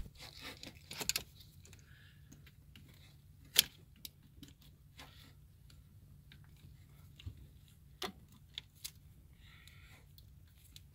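Metal tool clicks and clinks as tongue-and-groove pliers work a hose clamp on a rubber hose in a car engine bay, scattered and irregular, with one sharp click about three and a half seconds in. A low steady hum runs underneath.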